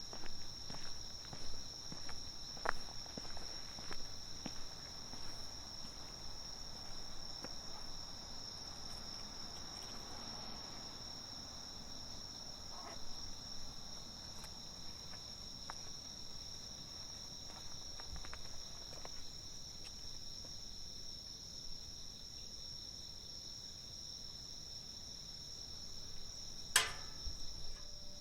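Steady chorus of night-singing insects, a continuous high trill in two pitches, with footsteps in the first few seconds and a single sharp click near the end.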